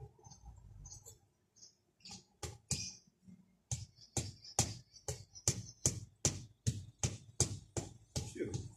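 A brick of garden edging tapped down with a hammer to bed it level: a rapid run of sharp knocks, about three a second, starting about two seconds in.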